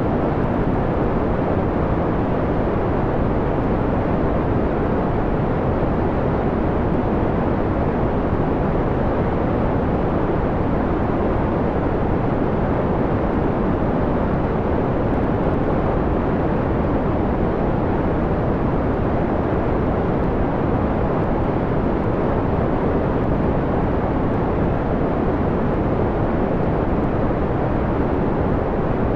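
Steady synthetic white noise, dimmed to a mellow, dark tone with little hiss left: the sound sits low and rumbling-soft, with no changes or events.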